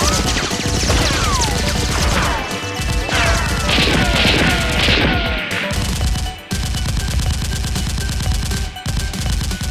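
Rapid gunfire sound effects over background music, with falling whistling sweeps during the first half, a brief break a little past the middle, then more dense firing.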